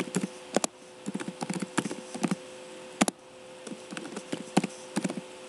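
Typing on a computer keyboard: irregular runs of key clicks, with one sharper, louder key press about three seconds in, over a faint steady hum.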